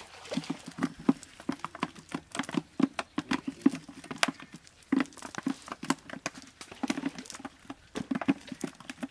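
Live fish flapping on bare earth, tangled in a cast net, make a fast, irregular patter of slaps and thumps.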